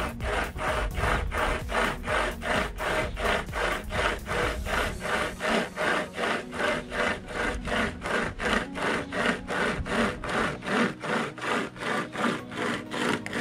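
Overmont pocket hand chainsaw's chain being pulled back and forth through a wooden branch: a steady, rhythmic rasp of chain teeth biting wood, about three strokes a second.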